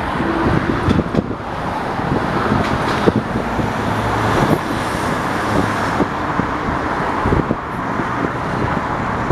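Slow-moving Union Pacific freight train rolling past, its steel wheels clattering with irregular knocks over a steady rumble.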